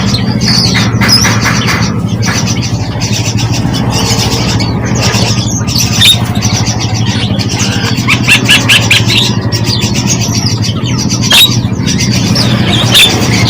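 Small birds chirping and trilling in short high calls over a steady low hum.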